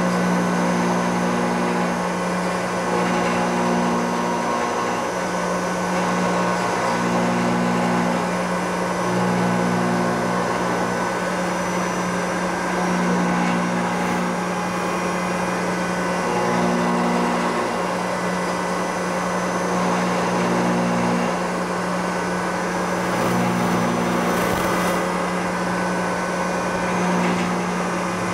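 Supermax YCM-40 CNC knee mill running, its spindle driving an end mill through aluminium, over a steady hiss of mist coolant. The machine's hum changes pitch every second or two as the cut moves along.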